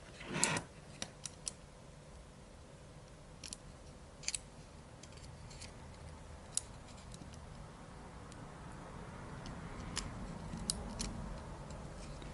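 A short rip of adhesive tape pulled off a roll about half a second in, then scattered small clicks and taps as the tape is handled and wrapped onto a loose-fitting printer part to take up its slack.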